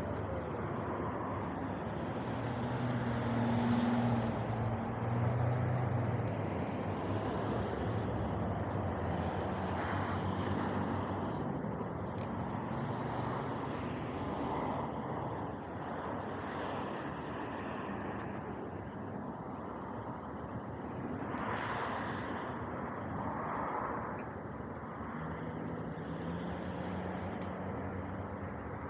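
Road traffic at a busy intersection: a steady hum of cars idling and passing, with a nearby vehicle's engine hum swelling about three to six seconds in and another low engine hum near the end.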